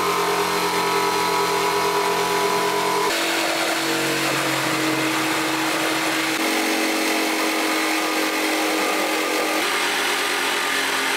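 Corded electric jigsaw running steadily, its blade cutting a hole through a thick wooden cabinet top. The motor's tone shifts abruptly a few times.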